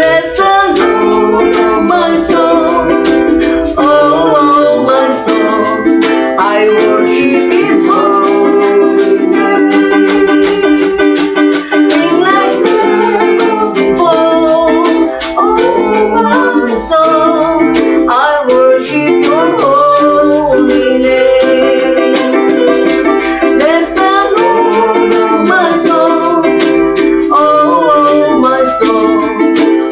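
A ukulele strummed steadily with a woman singing along.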